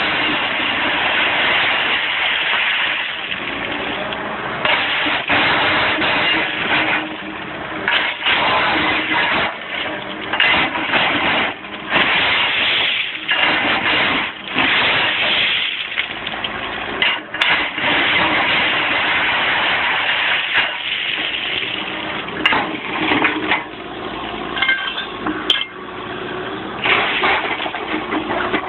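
Heavy railway track machinery working: a loud, dense mechanical noise that surges and drops every second or two, with a few sharp clicks.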